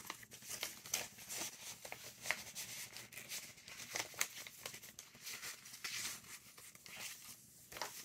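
Faint rustling and crinkling of paper as loose cards and thick mixed-paper pages of a handmade junk journal are handled and turned, with many small quick paper ticks.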